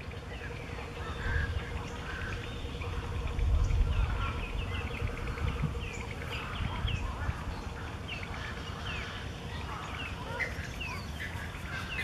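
Many water birds calling from the trees at once, a steady chatter of short, quickly falling calls, with wind rumbling on the microphone, strongest about four seconds in.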